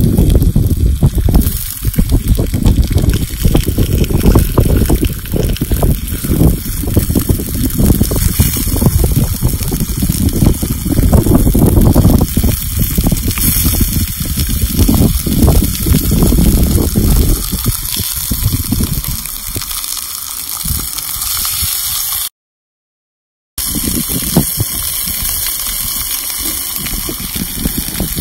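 Beef steak sizzling on a hot stone slab over a wood fire, a steady hiss throughout. Wind buffets the microphone with a gusty low rumble over the first half or so, then eases. The sound cuts out for about a second past the two-thirds mark.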